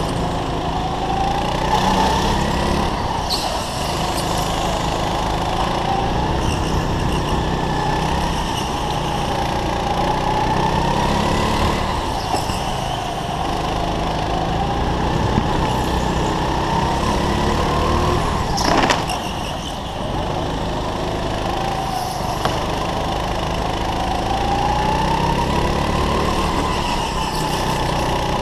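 Go-kart engine heard from on board, its revs rising and falling again and again as the kart laps. A sharp knock comes about two-thirds of the way through.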